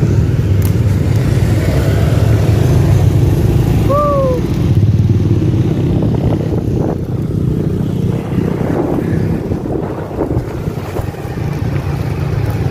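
Motor scooter running steadily while riding along a road, its engine rumbling under wind rushing over the microphone. A short falling chirp sounds once about four seconds in.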